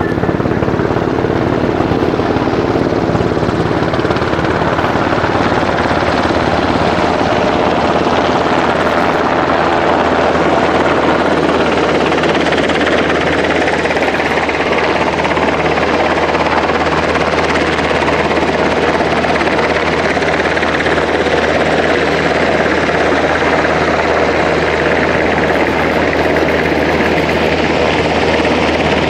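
UH-60 Black Hawk helicopter hovering low overhead: a steady beat of the main rotor over the whine of its twin turboshaft engines, holding level throughout.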